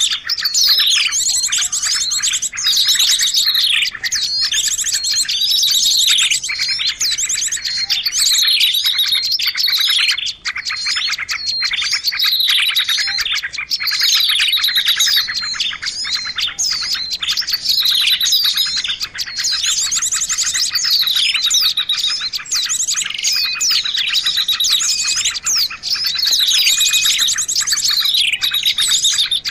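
Bird-lure recording of small songbirds calling: loud, rapid high chirps, sharp downward-sweeping notes and fast trills, repeating in a cycle about every two seconds.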